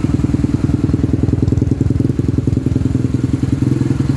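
Yamaha XTZ 125's single-cylinder four-stroke engine idling steadily through an aftermarket 'sound bomb' exhaust pipe, a rapid even putter whose tone is slightly deepened by the pipe.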